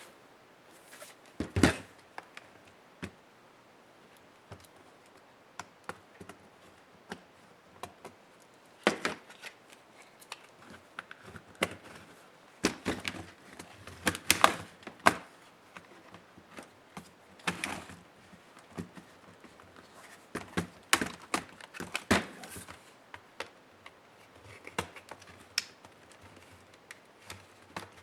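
Irregular clicks, taps and knocks of hands and small tools working on a laptop's plastic case and parts during disassembly, some in quick clusters, with a faint steady low hum underneath.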